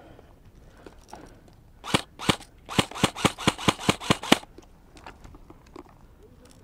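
Airsoft rifle firing a quick string of about a dozen shots, around five a second and slightly uneven, in about two and a half seconds starting some two seconds in.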